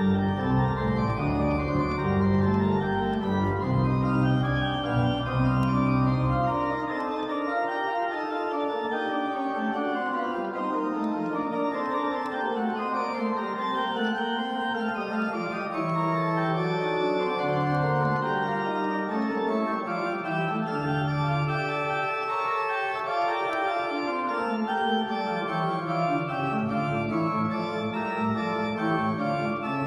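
Church organ played on two manuals: full chords with moving, scale-like lines. Deep bass notes sound for the first several seconds, then fall away, coming back briefly a few times later on.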